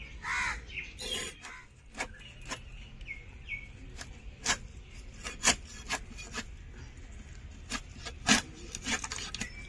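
A blade scraping the small scales off a large sea fish, in short irregular rasping strokes.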